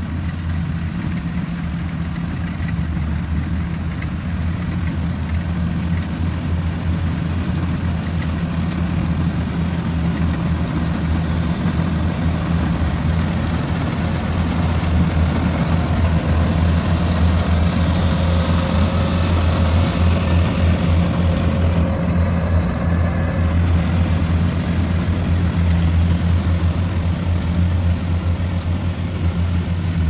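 Kubota rice combine harvester running steadily while cutting rice: a deep, continuous diesel engine hum that grows louder from about halfway through as the machine works closer.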